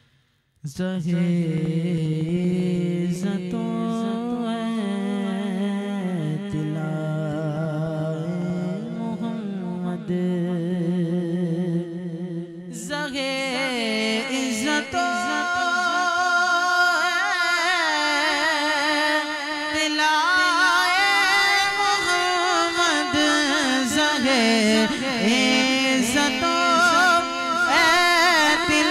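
Solo male voice singing a naat without instruments, the melody ornamented and wavering in pitch, over a low steady drone. About thirteen seconds in the drone drops away and the voice becomes brighter and louder.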